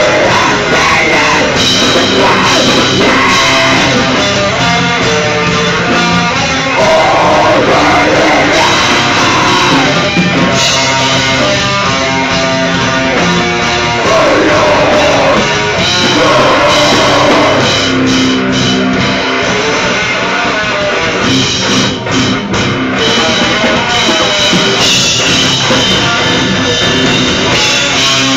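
A rock band playing live, with drum kit and guitars in a heavy-metal style, loud and without a break.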